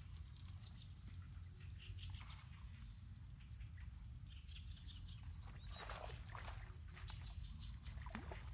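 Open-field ambience: a steady low rumble, typical of wind on the microphone, with scattered short high chirps and bursts of rustling that are loudest about six and eight seconds in.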